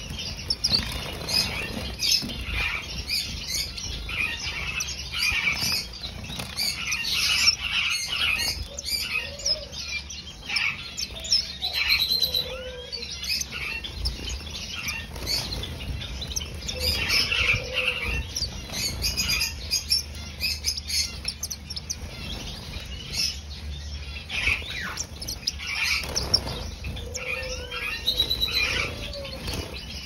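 A cage of star finches chirping with many short, high calls while wings flutter as birds fly between perches. A few short, lower calls come in now and then.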